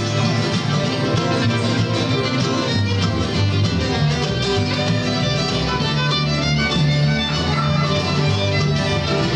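Acoustic bluegrass band playing an instrumental passage: a bowed fiddle carries the melody over strummed mandolin and a plucked upright bass line.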